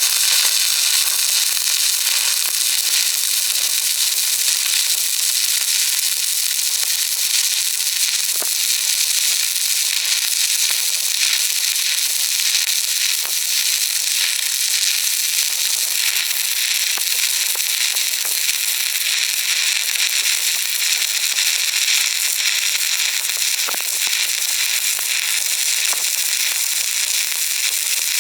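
Stick welding arc on thin galvanized steel, crackling and sizzling steadily without a break as the electrode burns.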